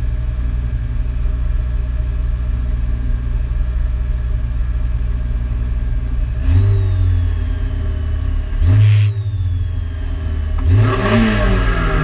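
Peugeot 106 rally car's four-cylinder engine idling, heard from inside the cabin, then blipped three times, each a quick rise in revs that drops back to idle, about two seconds apart, from about halfway through.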